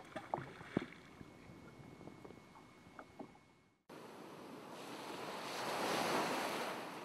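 Open-sea ambience on a small fishing boat, with a few light knocks as fishing gear is handled over the side, fading out. After a moment of silence, a smooth whoosh of noise swells up and dies away.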